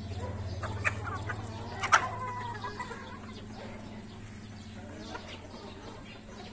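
Gamefowl roosters and hens clucking, with a few short, sharp calls in the first two seconds, the loudest about two seconds in, and quieter scattered clucks after.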